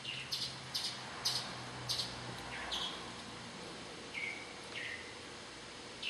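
A small bird chirping, about nine short high chirps spread out, some of them ending in a brief falling note.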